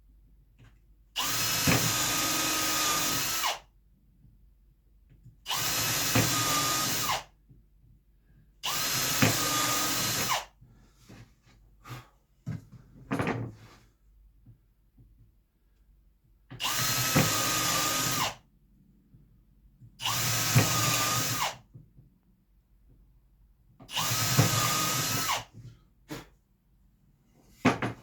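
Power drill running in six short bursts of about two seconds each, working into the plywood and pine boards, with light knocks of handling between bursts.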